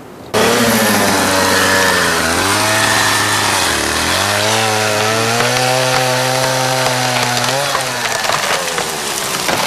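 Chainsaw cutting into a tree: it comes in suddenly at full speed, its pitch sags twice under load in the first half, holds steady, then drops away near the end.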